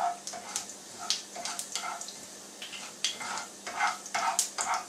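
A slotted spoon stirring spluttering mustard and cumin seeds in hot oil in a non-stick frying pan: quick repeated scraping strokes, a few a second, over a frying sizzle with sharp little pops from the seeds.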